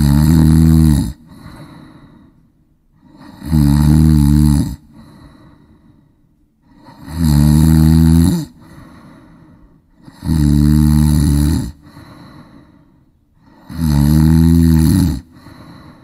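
A person snoring loudly and rhythmically: five low, buzzing snores about every three and a half seconds, each about a second long, with a softer breath between them.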